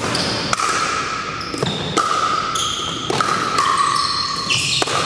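Pickleball paddles striking the hollow plastic ball and the ball bouncing on the hardwood gym floor: a run of sharp pocks, about one every half second, each leaving a short ringing echo in the large hall.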